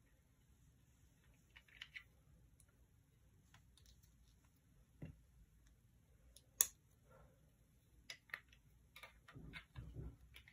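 Near silence with a few faint, scattered clicks and taps; the sharpest single click comes about two-thirds of the way through, and a short run of soft knocks near the end.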